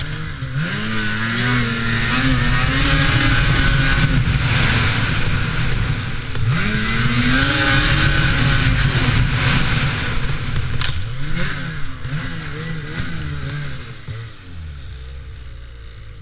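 Lynx Rave RE 850 E-TEC snowmobile's two-stroke twin engine accelerating hard twice, its pitch climbing and holding high each time. Then the throttle is blipped up and down a few times before the engine eases off to a lower, quieter running near the end.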